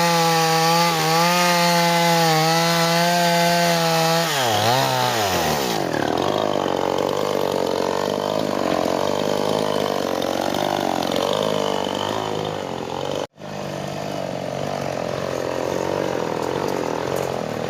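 Petrol chainsaw running at high, steady revs. About four seconds in, the engine note drops as the chain bites into the wood, and it carries on cutting with a lower, wavering, uneven note.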